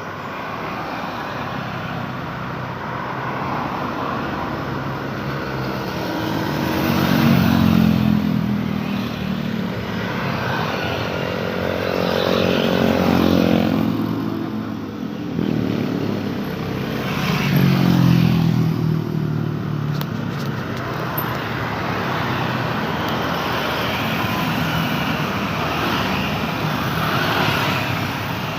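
Steady road traffic with cars and motorbikes. Three vehicles pass close by one after another, each engine swelling and then fading with a shift in pitch.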